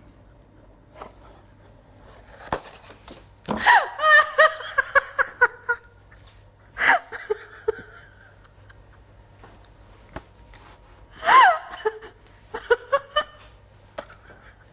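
A woman laughing in fits: a run of quick high-pitched 'ha' pulses about three and a half seconds in, a short burst near seven seconds, a squeal that rises and falls near eleven seconds, then a few more short bursts of laughter.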